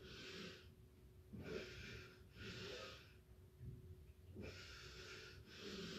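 A woman breathing audibly while holding a wheel-pose backbend: five faint breaths in and out, each a soft hiss of half a second to a second. A faint steady hum lies underneath.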